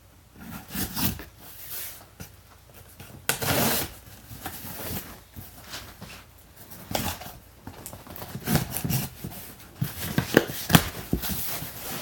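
Cardboard shipping box being opened by hand: irregular scraping, tearing and rustling of cardboard and packing, with a longer rush about three seconds in and a few sharp taps near the end.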